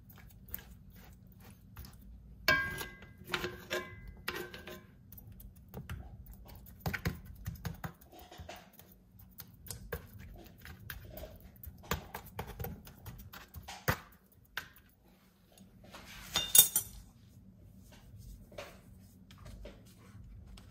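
Metal spoon tapping and scraping on seasoned lamb shoulder chops in a cast iron skillet: irregular light clicks, with a few ringing clinks about three seconds in and a louder ringing clink later on.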